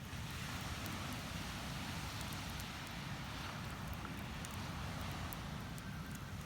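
Sea waves washing onto the shore in a steady rush, with a campfire's wood giving occasional faint crackles.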